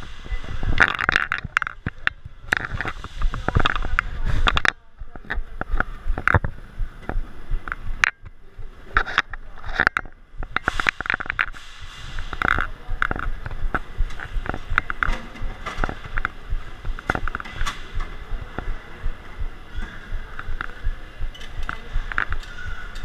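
Indistinct chatter of nearby shoppers, with rubbing and knocking on the microphone of a worn camera, heaviest as a low rumble with clicks in the first five seconds, then scattered clicks.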